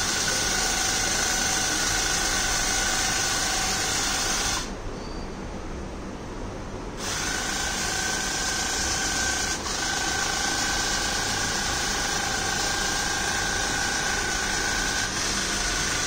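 Small geared DC motors driving the robot's four wheels, a steady electric whine with a high hiss. It drops away for about two seconds partway through, then starts up again.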